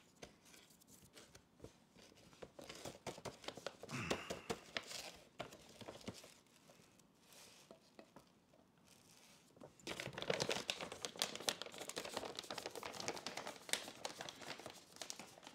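Packaging crinkling and rustling, with irregular clicks and tearing, as food is handled and prepared. The handling gets much busier after about ten seconds.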